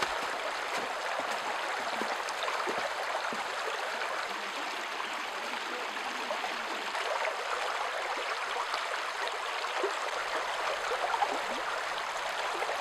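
Shallow brook flowing over stones and gravel, a steady babbling rush of water.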